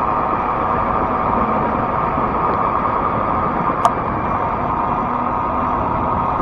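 Steady riding noise of a fat-tire electric bike: wind on the microphone with the hum of tyres and motor, and one short sharp click about four seconds in.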